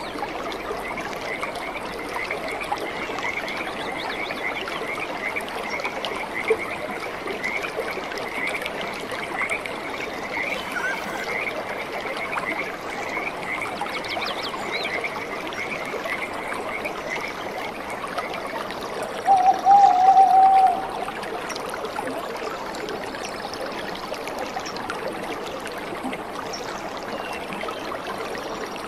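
Shallow stream running over rocks, a steady rush of water. Over it a small animal repeats a short high chirp about twice a second for the first two-thirds, and about two-thirds of the way in a louder warbling call lasts a second and a half.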